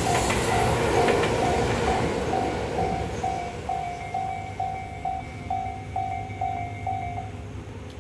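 Railway crossing bell ringing about twice a second while a Tobu 8000 series train runs past, its rumble and wheel clicks fading away. The bell stops about seven seconds in.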